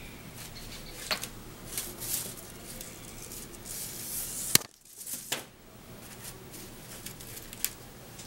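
Light rustles and taps of paper strips being handled on a tabletop, with a sharp click about halfway through followed by a brief dropout.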